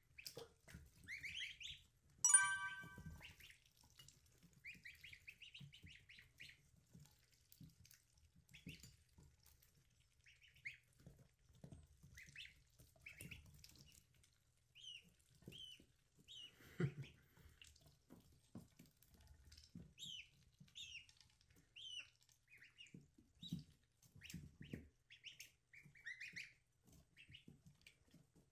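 Ducklings peeping: many short, high chirps, with one louder, harsher call a couple of seconds in and faint taps underneath.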